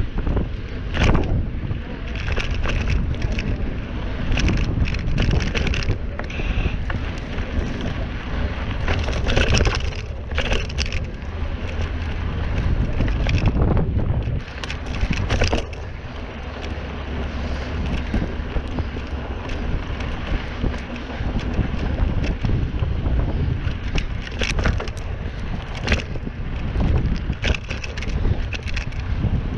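Mountain bike being ridden over a dirt trail: a constant low buffeting of wind on the microphone, with frequent short rattles and knocks from the bike over bumps.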